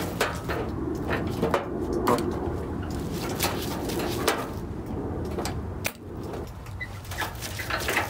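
A homemade microwave-transformer spotter dent puller at work on a steel car fender: about half a dozen sharp clicks and snaps at irregular intervals as the tip is zapped onto the panel and levered up to raise a dent, over a steady low background noise.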